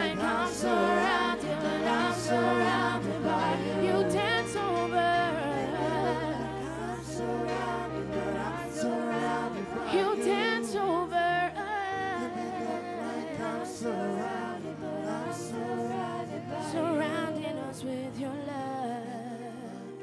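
Women singing spontaneous worship into microphones, with wavering, ornamented vocal runs over held low notes that shift every few seconds.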